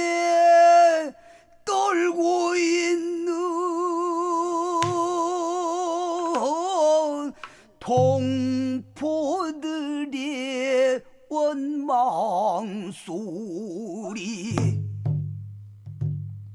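Male pansori singer drawing out long sung vowels with a wide, wavering vibrato and sliding ornaments, in a slow melismatic passage with few words. A low accompanying beat comes in near the end.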